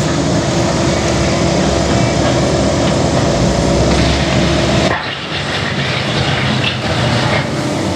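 CAT 308E mini excavator's diesel engine and hydraulics running under working load with a steady whine; the whine drops out and the sound dips about five seconds in, then the whine returns near the end.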